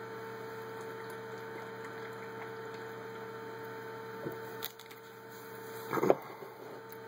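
Steady electrical hum of room tone, with a brief noise about six seconds in.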